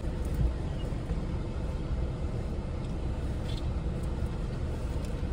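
Steady low rumble of a car idling, heard inside the cabin, with a soft thump about half a second in and a few faint clicks.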